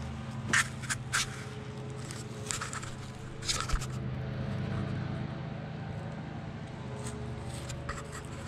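A few short crunches and scrapes of footsteps on dry leaf litter and loose stony ground, over a steady low background hum.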